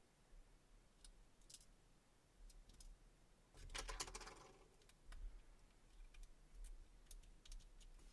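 Faint, scattered small clicks and taps of a tiny Phillips screw and the plastic key fob case being handled as the screw is set into its hole, with a louder cluster of clicks about four seconds in.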